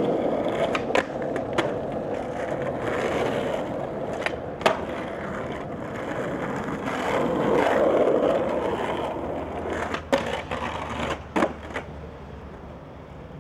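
Skateboard wheels rolling on asphalt, with sharp wooden clacks of the board striking the ground, several of them in quick pairs.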